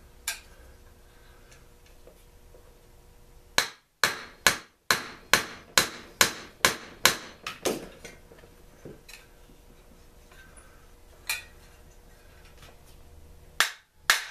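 Hammer striking a metal engine part. About ten sharp blows come in a quick run, then a single blow, then two more near the end, knocking a stuck part out of a Mantis tiller's two-stroke engine.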